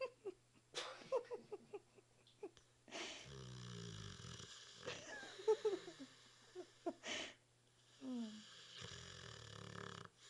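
A Victorian Bulldog snoring in its sleep: two long, noisy snoring breaths about three and eight seconds in, with short wheezy squeaks and snorts between them. The uneven breathing is what the owner takes for sleep apnea.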